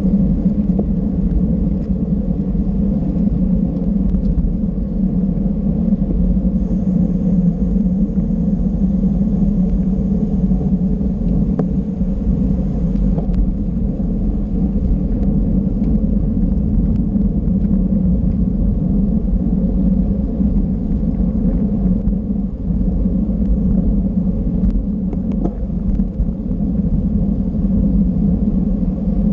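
Steady low rumble of wind buffeting a rider's camera microphone, mixed with tyre and road noise from a racing bicycle at speed.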